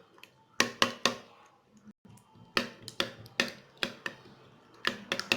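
A utensil beating an egg mixture in a bowl, clicking sharply against the bowl in irregular runs of strokes.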